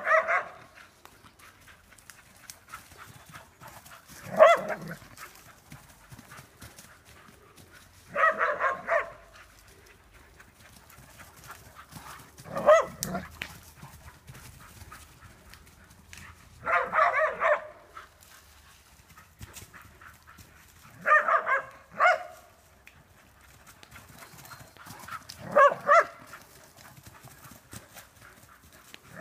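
Dog barking in short volleys of a few barks, about every four seconds.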